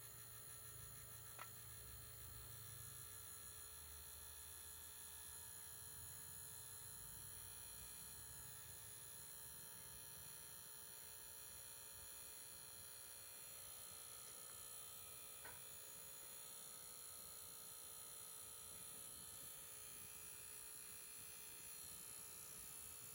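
A Sierra stove's small battery-powered blower fan running with a faint, steady electric hum as it forces air into the wood fire, with two faint ticks, about a second and a half in and again about fifteen seconds in.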